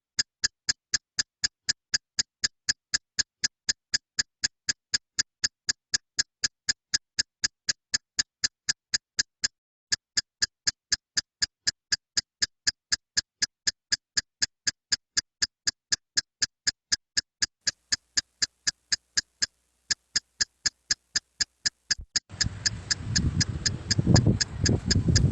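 Steady clock-like ticking, about three ticks a second, with dead silence between the ticks. Near the end, a rough background rumble comes in underneath.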